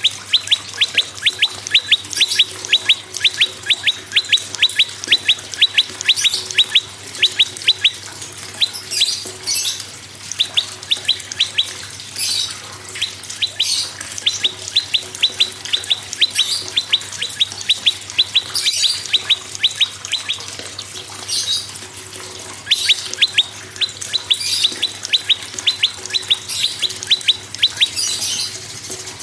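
Prenjak songbirds calling: long runs of sharp, rapidly repeated notes, about five or six a second, with short pauses between runs. Harsh rasping bursts mix in every second or two.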